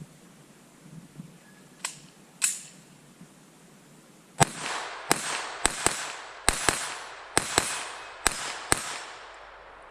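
Smith & Wesson M&P 22 Compact .22LR pistol firing: two lighter sharp cracks about two seconds in, then, from about halfway through, a quick string of about ten shots, several of them fired in close pairs.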